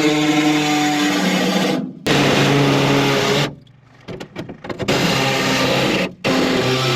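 Background rock music: distorted electric guitar chords held and changed every second or so, with a short choppy break in the middle.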